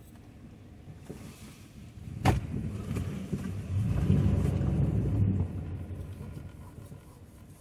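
Chevrolet Silverado pickup rolling slowly, heard from inside the cab: a low engine and road rumble with a single sharp knock about two seconds in, after which the rumble grows louder for a few seconds before easing off.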